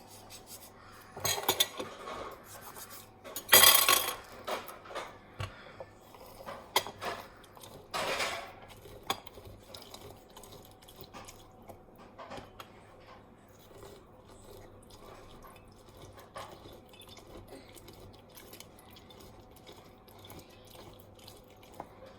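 Kitchen knife and dishes knocking and clinking on a worktop as a lemon is cut. The loudest clatter comes in the first few seconds, about four seconds in; after that there are only scattered light taps.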